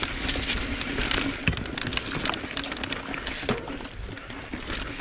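Mountain bike riding over a dry dirt singletrack, heard close to the handlebar: tyres on loose dirt with many small clicks and rattles from the bike.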